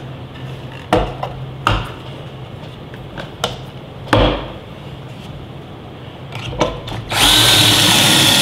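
A few sharp wooden knocks as a 1x4 board is set and clamped in a pocket-hole jig, then, about seven seconds in, a cordless drill starts and runs steadily with a high whine, boring a pocket hole into the end of the board.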